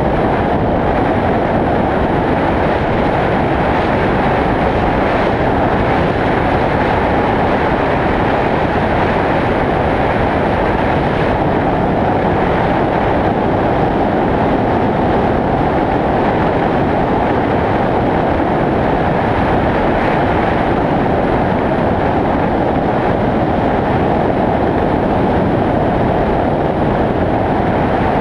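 Steady driving noise from a vehicle cruising on a paved highway, picked up by an action camera mounted low on the outside: an even rush of wind and tyre rumble with no distinct engine note, unchanging throughout.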